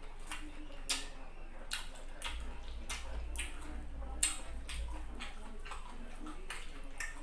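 Close-up eating sounds of a person chewing fried chicken and rice: irregular wet mouth clicks and lip smacks, one every half second or so.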